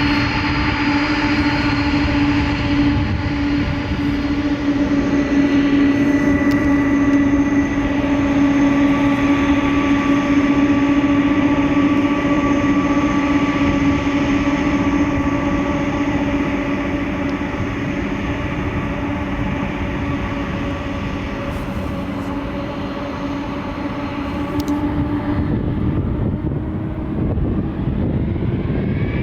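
Boeing 747 jet engines running steadily: a loud hum with a steady whine over a rushing noise. Near the end the whine starts rising in pitch as the engines spool up.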